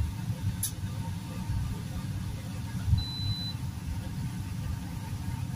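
Steady low rumble of a running kitchen appliance, with a light click just over half a second in and one short, high electronic beep about three seconds in.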